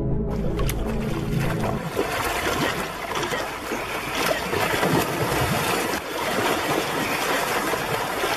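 Music that ends about a second in, then water splashing and churning in shallow sea, with many small sharp splashes.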